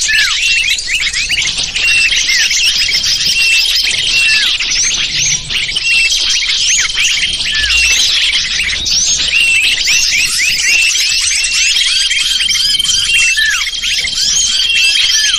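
Dense chorus of many small songbirds chirping and twittering without a break: a bird-luring call for gathering wild small birds. A thin steady high note comes and goes behind the chirps.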